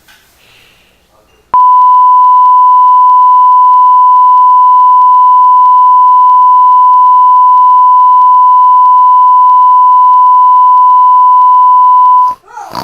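A single long electronic beep: one pure, very loud tone that starts abruptly about a second and a half in, holds steady for about eleven seconds, and cuts off near the end.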